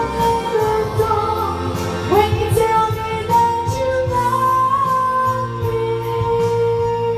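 A woman singing long held notes, with a few sliding turns, into a handheld microphone over a pop backing track with a steady bass line.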